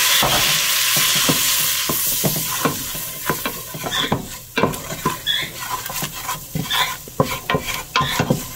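Flour and melted butter sizzling in a stainless steel stockpot as a roux is stirred with a wooden spoon. The sizzle is loud at first and fades over the first few seconds, leaving the repeated scrape and knock of the spoon against the pot.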